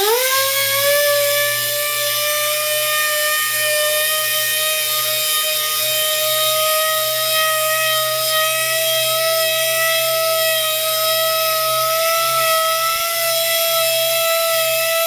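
Small pneumatic orbital sander with a 2000-grit Abralon pad wet-sanding paint, running as a steady high whine with an airy hiss. Its pitch rises and settles in the first half-second, then creeps up slightly.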